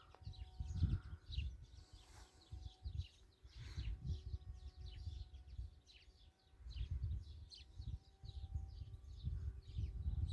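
Small birds chirping repeatedly in short, quick notes, over gusts of wind rumbling on the phone's microphone. A faint steady hum sits underneath, mostly in the second half.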